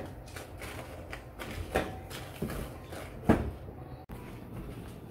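Toasted dried chiles being picked off a griddle by hand: a few light taps and dry rattles, the loudest about three seconds in.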